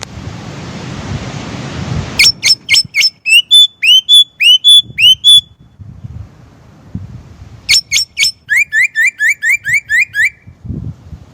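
Chinese blackbird calling: two runs of sharp notes repeated quickly, several a second, each run lasting about three seconds, with a gap of a couple of seconds between them. A rushing hiss fills the first two seconds.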